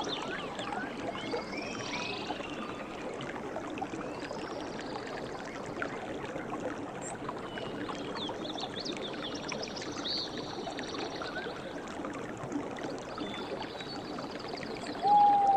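River water running steadily, with birds chirping and twittering over it. Near the end comes one short, loud call, much louder than the rest.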